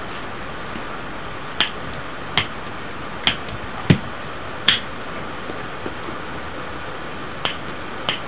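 Piezo igniter from a lighter clicking about seven times at uneven intervals: five clicks in quick succession, then a pause, then two more near the end, over a steady hiss.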